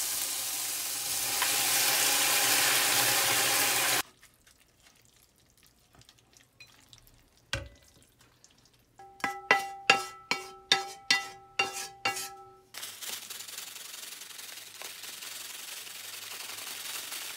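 Spaghetti boiling hard in a pot beside a sizzling frying pan of bacon and onion, stirred with wooden chopsticks; it cuts off suddenly about four seconds in. Later a quick run of about a dozen ringing metallic taps, followed by a faint steady hiss.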